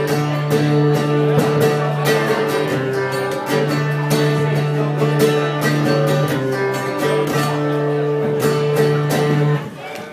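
Acoustic guitar strummed steadily through a song's closing chords, stopping suddenly about nine and a half seconds in.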